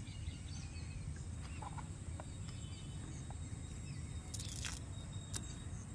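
Faint handling of a small plastic hard disk enclosure and its cable: a few light clicks and a brief crinkle about four and a half seconds in, followed by a sharp click, over a steady low hum.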